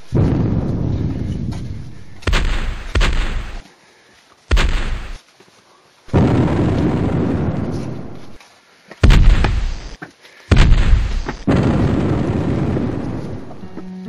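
A series of heavy explosion booms, about seven in all. Each starts suddenly and dies away over a second or two, and the loudest two come about two-thirds of the way through.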